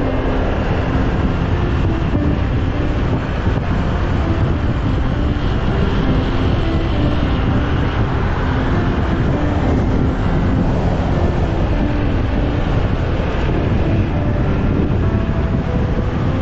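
Steady wind rush and buffeting on a helmet-mounted action camera while riding a motorbike, with the motorbike's engine and road noise running underneath.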